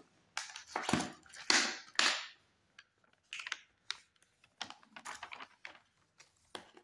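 Small plastic-wrapped stationery packets and items tumbling out of a crinkly plastic pouch and clattering onto a table: a quick run of clicks and plastic rustles, loudest in the first two seconds, then smaller taps as the packs settle and are moved.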